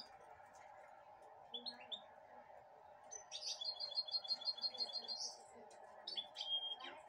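Young goldfinch-canary hybrid (goldfinch mule) chirping: a few short high chirps, then a quick even run of about a dozen notes, then more chirps and a short held whistle near the end. A steady low hum sits underneath.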